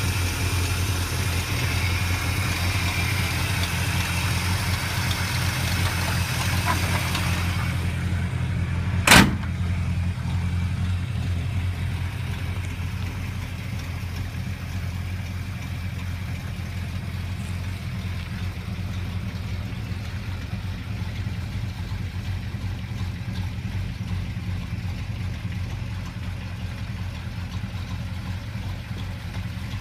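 1957 Chevrolet Bel Air engine idling steadily, heard close up over the open engine bay at first, then a little more distant. A single sharp knock comes about nine seconds in.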